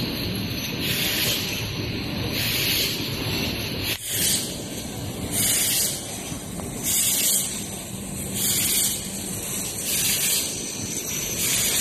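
Ampoule production line machinery running: a steady rush of air noise, with a high hiss that swells and fades about every one and a half seconds.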